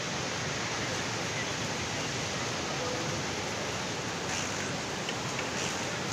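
A river in flash flood, its muddy water rushing steadily through the piers of a road bridge: a continuous, even wash of water noise.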